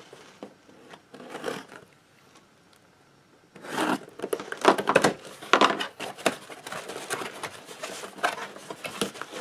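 A cardboard parcel being cut and torn open: a utility knife slices the packing tape, then the tape and cardboard flaps rip and scrape, a dense run of ripping strokes starting about three and a half seconds in.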